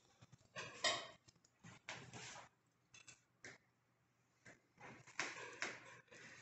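Light clinks and scrapes of a hanging iron griddle as pieces of dough are set on it by hand, in irregular short bursts, the loudest about a second in.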